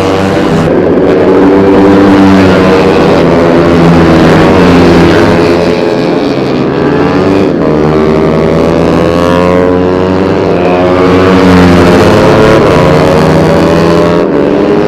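Several racing 150cc four-stroke underbone motorcycles revving hard at once, their engine pitches repeatedly climbing and dropping as they accelerate and shift through gears.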